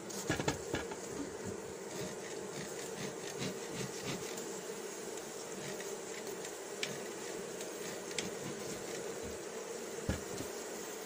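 Honeybees humming steadily over an open hive, the sound of a colony the beekeeper believes has lost its queen and has a laying worker. A few sharp knocks sound about half a second in and again near the end.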